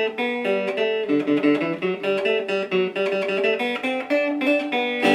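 Electric oil can banjo, a five-string banjo neck on a Marvel Mystery Oil can with a lipstick tube pickup, played through an amplifier on its clean setting: a quick run of plucked banjo notes.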